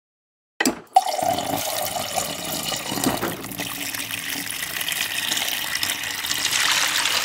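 Water running from a tap into a bucket, starting about a second in after a short click.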